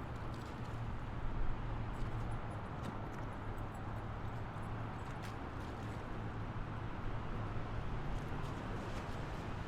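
Steady road noise of a car driving at highway speed: an even rumble of tyres and engine with a hiss of wind and traffic and a few faint ticks.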